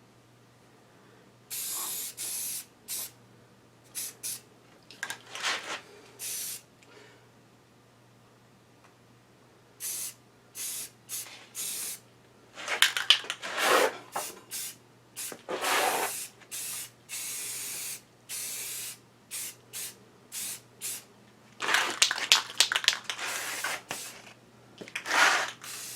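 Spray paint hissing out in many short bursts with brief pauses between, a few of them longer and louder, as parts are sprayed with primer.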